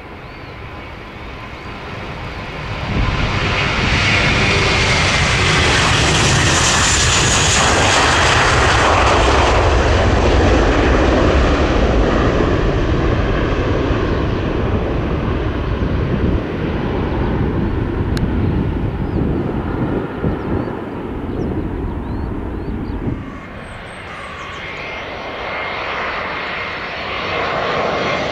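Airbus A321 jet airliner taking off: the engine roar builds from about three seconds in and holds loud, with a whine sliding down in pitch as it passes. About twenty-three seconds in it cuts to a quieter A321 approaching to land, growing louder near the end.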